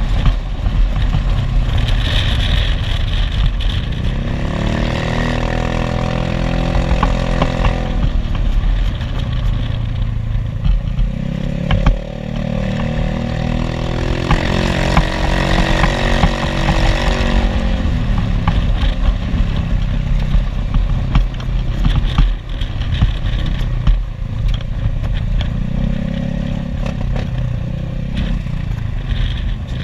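Maxi-scooter engine running on the move, its pitch rising and falling several times as the throttle opens and closes, over a steady low wind rumble on the microphone.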